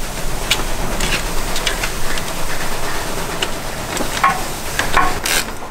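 Scattered short metallic clicks and clinks of tools working on rusty fixings while the standard intercooler is taken out, over a steady hiss.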